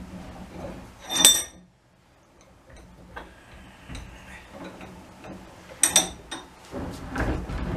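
York 15 cm cast-iron bench vise being worked by hand: its steel handle clanks in the screw head, giving a sharp, ringing metallic clink about a second in and another near six seconds, with faint clicks between as the screw turns freely. Near the end a low rumble starts as the vise body is turned on its swivel base.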